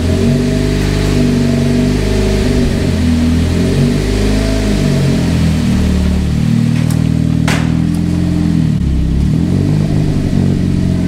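Turbocharged SR20DET inline-four engine running, its speed stepping up and down unevenly, with a short hiss about seven seconds in. The owner puts the trouble down to an injector problem.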